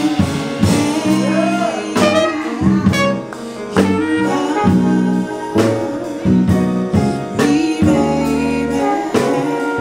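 Live band music with a steady pattern of drum hits under melodic lines, in a jazz-soul style, between spoken-word and sung sections.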